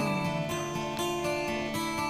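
Background music led by an acoustic guitar, with sustained notes changing every half second or so.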